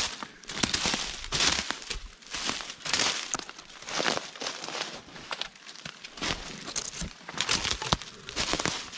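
Footsteps crunching through dry fallen leaves and twigs on a forest floor, at a walking pace of roughly one step a second.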